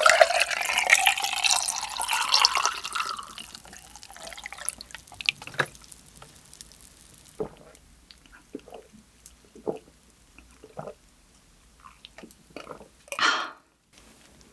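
Bottled Black Barley tea poured into a cup for about three seconds, the pitch rising as the cup fills. After it come scattered light clicks and one short rustle near the end.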